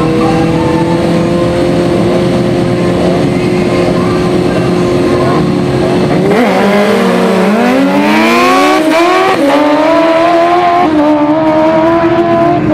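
Two sport motorcycles' engines held at high, steady revs on the drag-strip start line, then launching about six seconds in. The pitch dips and then climbs in steps, with several upshifts as the bikes accelerate away down the strip.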